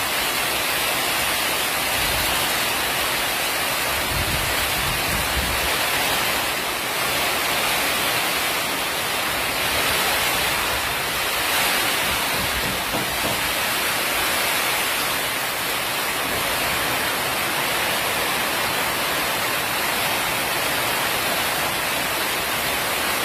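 Heavy rain pouring down in a steady, dense hiss, with a few brief low rumbles about two and four seconds in.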